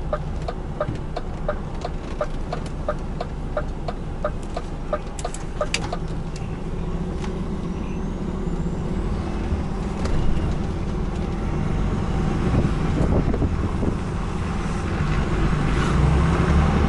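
Inside a truck cab: the turn indicator relay ticks evenly, about three times a second, over the HGV's idling diesel engine. The ticking stops about six seconds in, and the engine then pulls the truck away, building and getting louder near the end.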